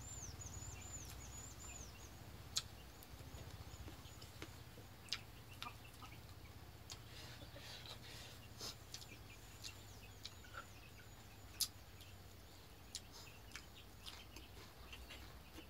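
A small bird gives rapid runs of short, high chirps, one run near the start and another about nine seconds in, over a faint steady low hum. Scattered soft clicks come from a man eating sticky rice by hand.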